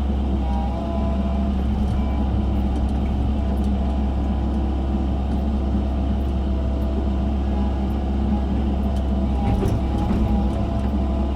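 Excavator engine running steadily while digging, a low, even drone that holds its pitch.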